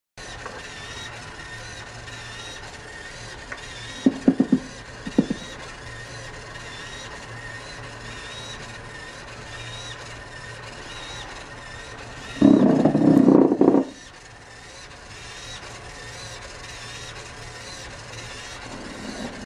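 Over a steady hum, short rasping scrapes about four seconds in and a louder scraping rub lasting about a second and a half about twelve seconds in: the four rubber tyres of a Pioneer 3-AT skid-steer robot scrubbing on a hard floor as the robot is turned in place.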